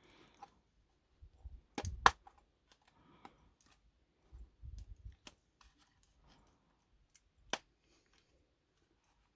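Handling of a plastic model locomotive as its body shell is worked loose from the chassis: scattered sharp plastic clicks and a few soft knocks, a handful at a time.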